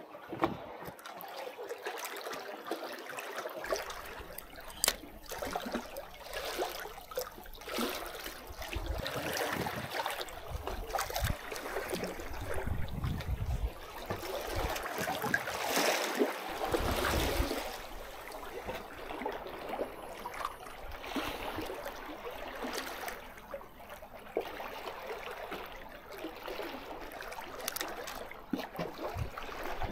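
Seawater sloshing and trickling around breakwater tetrapods, swelling louder around the middle.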